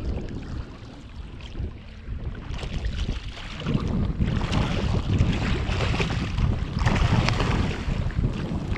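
Sevengill shark thrashing and splashing at the surface beside a kayak, with wind buffeting the microphone throughout. The splashing gets loud about three and a half seconds in and goes on for several seconds.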